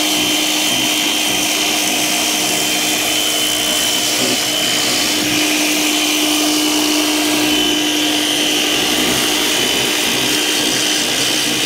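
DeWalt DCPW550 cordless 20V power cleaner running on its high setting, its motor and pump humming steadily under a hiss of water spray striking a muddy plastic ATV fender.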